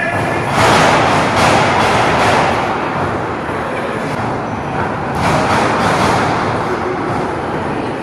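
A small live crowd yelling and cheering, a dense wash of voices that swells about half a second in and again about five seconds in.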